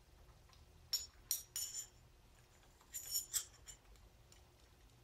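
Light metallic clinks and rattles of steel pushrods being slid down through a V8 cylinder head, knocking against the metal as they go in. They come in two quick clusters, about a second in and again around three seconds in.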